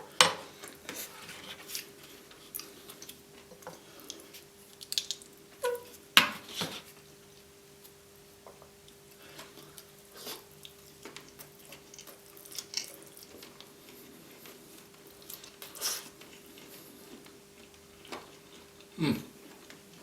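Close-miked eating: chewing and biting, with scattered sharp clicks of cutlery and dishes. The sharpest strokes come at the start, about six seconds in, about sixteen seconds in, and near the end. A faint steady hum runs underneath.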